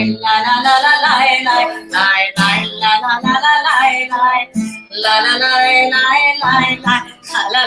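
Wordless 'yai lai la la' nigun sung to guitar accompaniment, in a lilting melody broken into short sung syllables.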